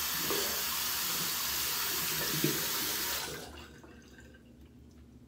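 Tap water running steadily into a sink to rinse a safety razor between shaving passes, shut off a little over three seconds in.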